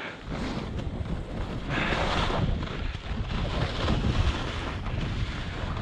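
Wind rushing over an action camera's microphone during a downhill ski run, a steady low rumble, with the hiss of skis scraping across the snow swelling about two seconds in.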